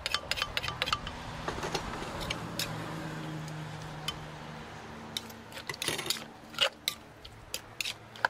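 Light clinks of a utensil against dishes: a quick run in the first second, then scattered clinks over a low steady background hum, with a few more about five to seven seconds in.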